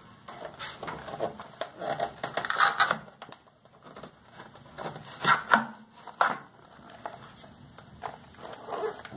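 Crinkling and clattering of packaging and loose parts being handled inside a new PC case, in irregular bursts, with a lull around the middle.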